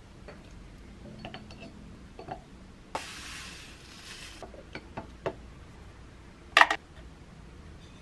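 Kitchen prep sounds at a glass jar: light taps and scrapes of a wooden spoon pushing chopped strawberries in, then sugar poured from a bag into the jar with a hiss about three seconds in. Near the end comes a sharp, ringing clink of glass, the loudest sound.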